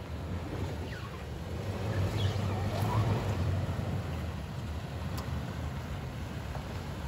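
Toyota 4Runner's 4.0-litre V6 running at low revs as the SUV crawls over rock, a steady low hum that swells a little louder about two seconds in as it pulls up over the boulders, with a few faint clicks.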